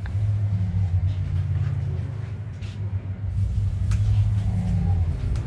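A steady low rumble, loud and even throughout, with a couple of faint clicks partway through.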